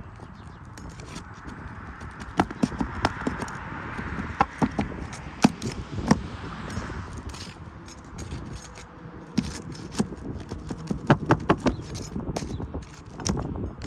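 Putty knife working under asphalt shingle tabs to break their sealant bond: irregular clusters of sharp clicks, taps and scrapes as the tabs are pried and popped loose.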